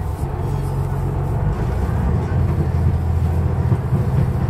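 Diesel engine drone of a KiHa 187 series railcar heard inside the passenger car, a loud steady low rumble that grows slightly louder as the train runs.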